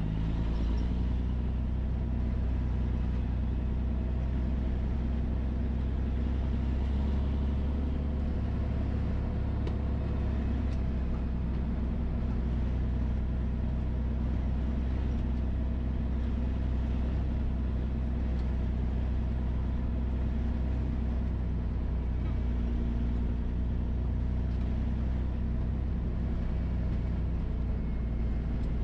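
Loaded triaxle dump truck's diesel engine running at a steady low hum as the truck drives along a dirt road.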